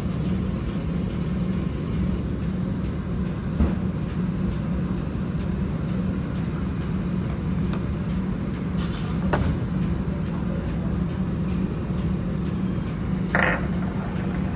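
A steady low hum, with a few light clicks of lids and chopsticks on tableware, and a brief brighter clink near the end.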